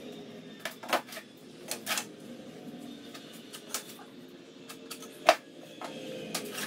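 Wooden boards knocking and clattering as lumber is handled and laid down on a table, a few scattered knocks with one sharp, louder knock about five seconds in.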